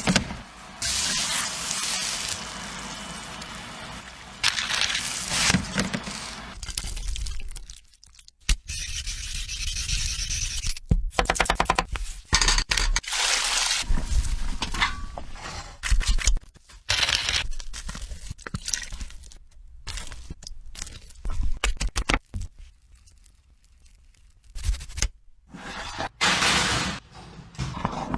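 Cooking sounds in short cut-together clips: utensils scraping, stretches of noisy hissing, and sharp knocks, each starting and stopping abruptly.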